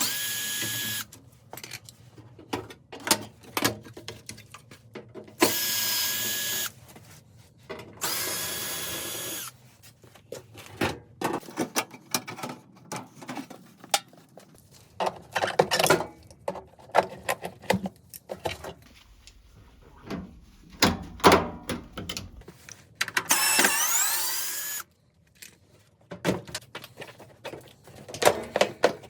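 Handheld power drill-driver run in four short bursts, one of them spinning up with rising pitch. Between the bursts come scattered clicks and knocks of parts being worked on.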